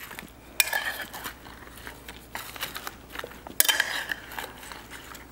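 Metal tongs tossing sliced beets in a glass mixing bowl, with a few sharp clinks of metal on glass, the loudest about half a second in and again near four seconds.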